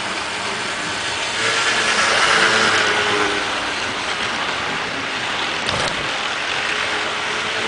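HO-scale Athearn Baltimore and Ohio streamlined passenger train running past on the track: the model locomotive's motor hum and the whir of wheels rolling on rail, swelling as the cars pass close and loudest about two to three seconds in.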